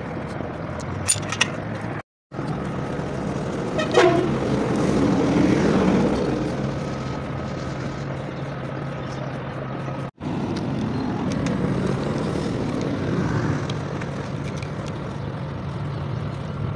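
Steady rumble of road traffic and engines, with a vehicle horn giving a falling toot about four seconds in and a few sharp clicks about a second in.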